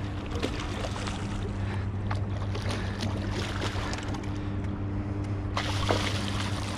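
A boat's motor running steadily with a low hum, under water noise and a few small knocks.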